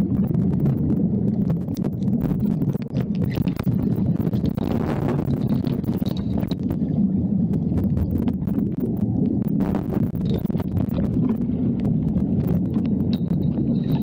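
Muffled underwater noise through a camera in a waterproof housing: a steady low rumble with many scattered clicks and crackles.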